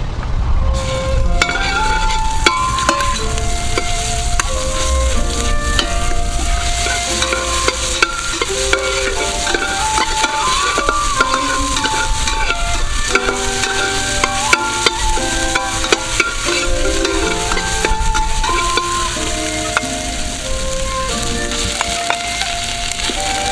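Red chili paste and curry paste sizzling in hot oil in a stainless steel pot, stirred with a metal ladle that clicks and scrapes against the pot over and over.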